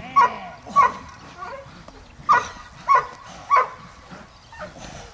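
Dog barking in short, sharp single barks, six of them about half a second to a second and a half apart, the last one softer.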